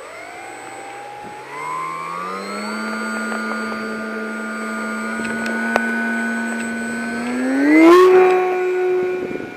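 Electric motor and propeller of a small foam RC shock-flyer model plane whining. The pitch rises as the throttle opens for the hand launch, holds steady, then climbs again and is loudest about eight seconds in as the plane flies close past, dropping away near the end.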